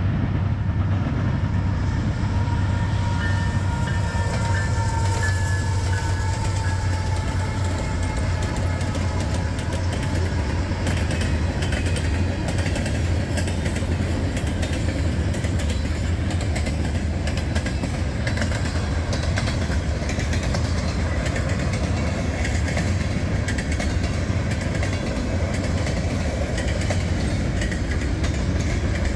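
Freight train cars rolling past: a steady low rumble of steel wheels on rail with rapid clicking over rail joints, continuing without a break.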